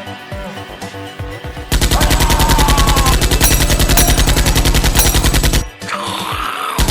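Background music, then about a second and a half in a long burst of rapid automatic gunfire, around ten shots a second, which runs for about four seconds and stops abruptly.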